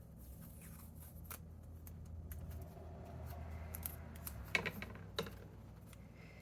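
Paper-crafting handling sounds: light rustling and scattered small clicks of paper and tape being worked, with two sharper snaps about four and a half and five seconds in.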